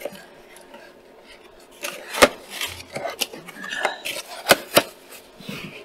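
Items being handled and unpacked from a box: a few sharp clicks and knocks with some rustling, starting about two seconds in.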